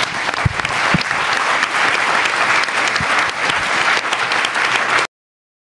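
Audience and panel applauding, a dense steady clapping that cuts off abruptly about five seconds in.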